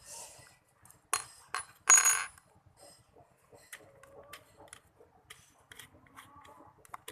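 Small steel screwdriver bits clinking and clicking as they are handled and fitted into a drill chuck, with two sharper metallic clinks about one and two seconds in, the second one ringing briefly, then lighter taps and clicks.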